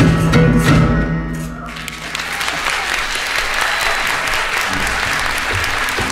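Music from a band playing instruments built from waste cans, pipes and pots ends on a held low note in the first two seconds, then an audience applauds.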